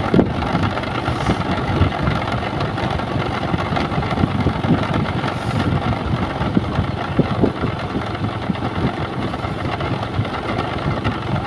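Steady engine and road noise of a moving vehicle, with uneven gusts of low rumble.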